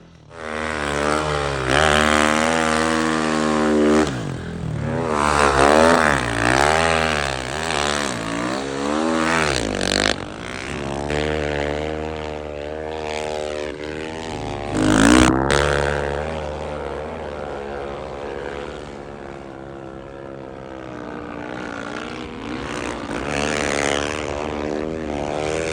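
Car engine revving hard and easing off again and again, its pitch climbing and dropping in repeated surges.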